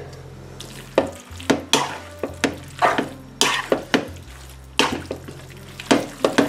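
Wooden spoon stirring and tossing fettuccine with salmon in a thin milk sauce in a nonstick frying pan. From about a second in come irregular scrapes and knocks of the spoon against the pan, roughly two a second.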